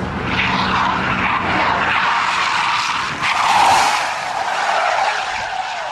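Car tyres skidding as a sedan slides sideways in a drift, a rushing screech that swells and eases, loudest a little past halfway.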